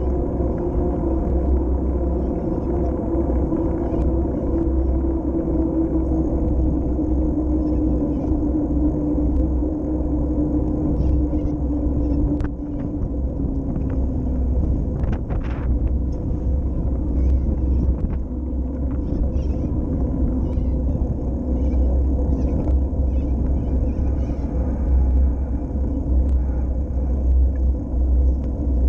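Wind noise on the microphone of a camera mounted on a moving bicycle, over the steady hum of the bike rolling along the path. The hum slowly falls in pitch over the first half, and a few faint clicks come about halfway.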